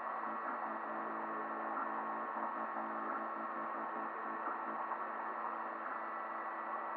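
FDM 3D printer at work: a steady hum with several held tones from its hotend cooling fan and stepper motors as the print head lays down plastic.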